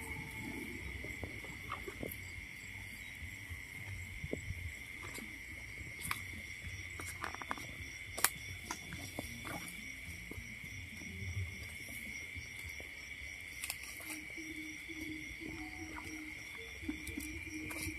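Night insects trilling in one steady high-pitched chorus, with scattered small clicks and rustles over a low rumble.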